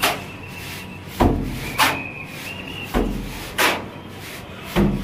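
Cement plaster mortar being scooped from a heap on the floor and thrown by hand onto a wall for the rough first coat. The sound comes as repeated wet slaps in about three pairs: a dull thud, then a sharper splat a little over half a second later.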